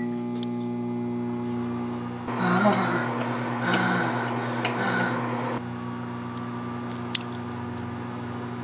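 Microwave oven running with a steady electrical hum. A stretch of louder mixed noise sits over it from about two to five and a half seconds in, and a single sharp click comes near the end.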